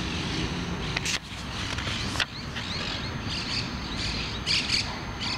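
Paperback book pages being handled and flipped, with two sharp knocks about one and two seconds in, over steady low background noise. Birds chirp faintly in the background from about halfway.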